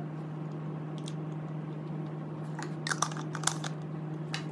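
Plastic breast pump parts clicking and tapping as a collection bottle is picked up and fitted to the flange assembly, with a cluster of clicks about three seconds in. A steady low hum runs underneath.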